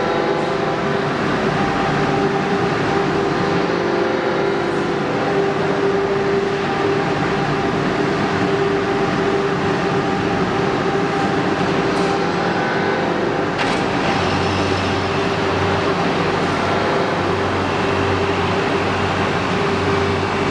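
Explosion-proof air conditioner running on a factory test: a loud, steady rush of fan noise with a steady humming tone. A deeper hum joins about two-thirds of the way through.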